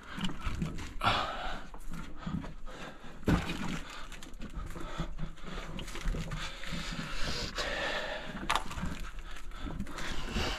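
Heavy breathing and scuffing of a person crawling over loose stones and dirt in a narrow rock tunnel, with a few sharp knocks and scrapes against the rock.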